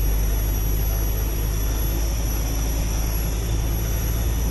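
Truck's diesel engine running steadily while driving, heard from inside the cab as a steady low drone with road noise.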